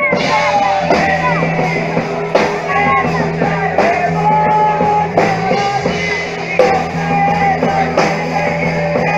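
Live rock band playing through small stage speakers: electric guitars over a held bass line and a drum kit keeping a steady beat, with a melody line on top.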